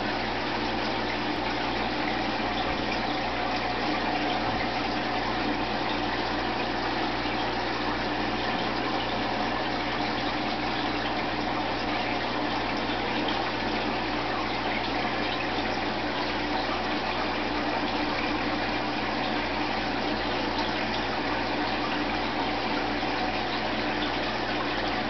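Aquarium filter running: a steady rush of moving water with a faint, even motor hum underneath.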